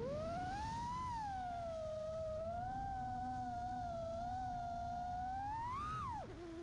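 FPV quadcopter's brushless motors and propellers whining with throttle. The pitch climbs steeply at the start, holds with slight wavering, rises again near the end, then drops sharply as the throttle comes off.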